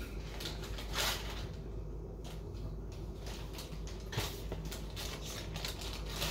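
Scattered light knocks and clatters of plates and utensils being handled at a kitchen counter during a meal, over a steady low hum.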